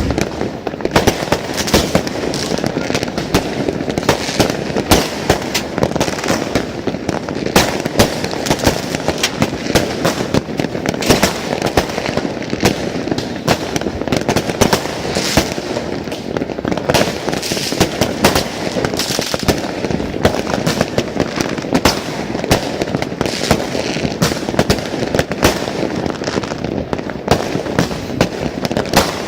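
Dense, continuous barrage of fireworks and firecrackers, many bangs and crackles overlapping with no pause.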